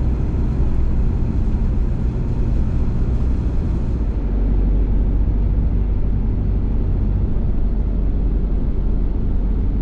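Engine and road noise of a Citroen van heard from inside the cab, a steady low rumble as it climbs a mountain road; the engine note changes about four seconds in.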